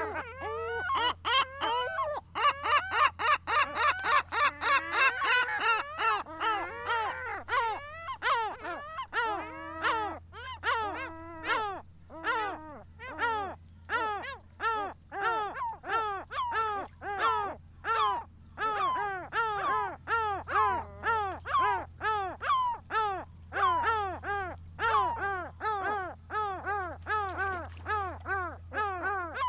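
Gulls calling. Several overlap at first, then a long run of short, repeated calls follows at about two a second, each dropping in pitch, over a steady low hum.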